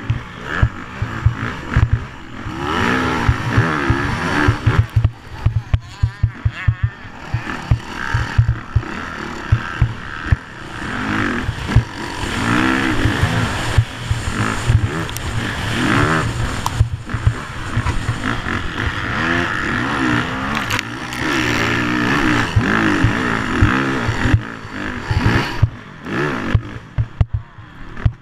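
Motocross bike's engine revving up and falling off again and again while being ridden hard, with wind blasting the microphone and frequent low thumps and clatter as the bike hits bumps and ruts.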